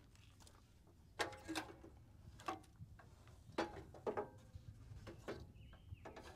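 Hand tools and metal parts clinking and knocking while tractor hydraulic parts are fitted and threaded by hand: about six sharp taps, each with a short metallic ring, spread irregularly, with a louder knock at the very end.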